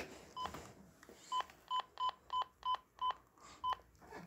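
Cobra microTALK walkie-talkie beeping as its channel button is pressed over and over to step through the channels. About nine short, identical beeps, most of them in a quick run in the middle.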